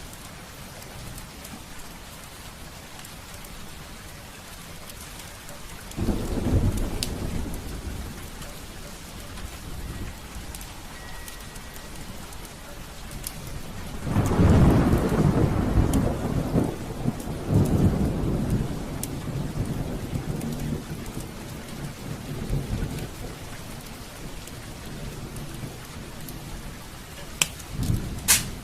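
Heavy rain falling steadily, with thunder: a roll about six seconds in, a long, louder rumble from about fourteen seconds that lasts several seconds, and another clap near the end. Now and then a sharp pop from a crackling fireplace fire.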